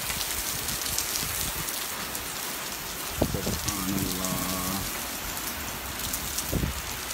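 Heavy rain pouring steadily onto paving and walls: an even hiss with scattered sharp drop ticks close by.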